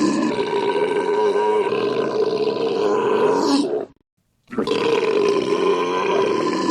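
A man's long, drawn-out belch, one continuous loud burp that cuts off suddenly about four seconds in; after half a second of silence the same belch starts over.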